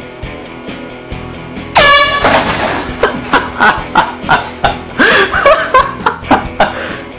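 A handheld air horn blasts suddenly and very loudly about two seconds in, over background music with a steady beat. Several seconds of loud, uneven, pulsing sound follow.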